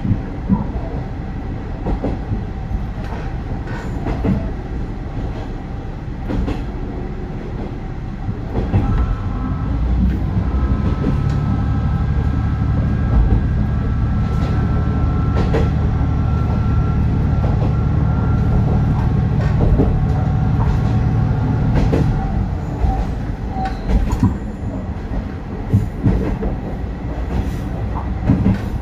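Isumi Railway KiHa 350 diesel railcar running along the line, heard from inside the car: wheels click over rail joints. The engine's low drone swells about a third of the way in, holds steady, then drops back about three quarters through.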